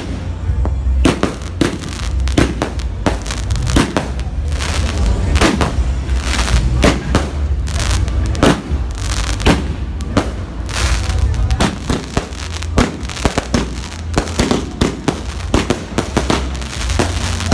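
Fireworks going off: a long run of sharp bangs and crackles in quick, irregular succession.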